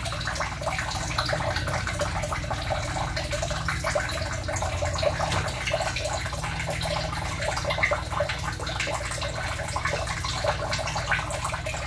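Water trickling and splashing steadily in a shallow tiled fry tank, with many small drips and ticks.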